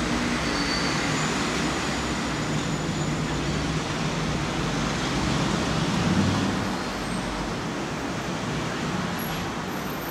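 Steady road-traffic noise, a low rumble under a broad hiss, swelling a little about six seconds in.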